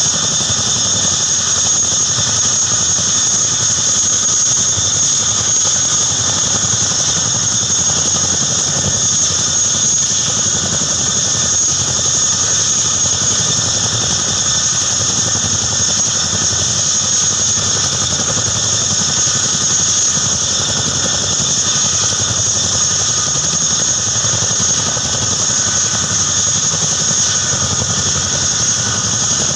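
Boeing CH-47 Chinook tandem-rotor helicopter running on the ground, its twin turboshaft engines giving a steady high turbine whine over a low rumble as the rotors turn slowly.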